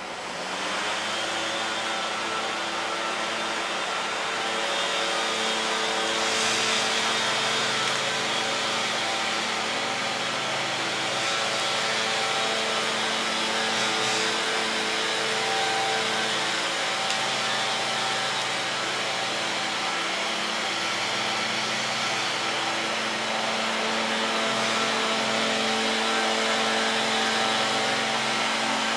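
The engine of tree-trimming machinery comes up to speed about half a second in, then runs steadily at a constant pitch.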